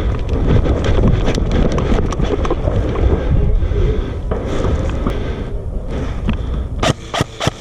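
Rumbling wind and movement noise on the microphone as a player advances through the field, then a quick run of four sharp clicks near the end.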